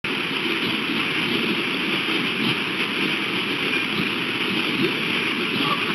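Steady rushing outdoor background noise, with a faint, steady high-pitched hiss above it.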